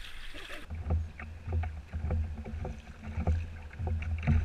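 Choppy water slapping against a Hobie kayak's hull: a low rumble broken by irregular short knocks, about two or three a second, loudest near the end.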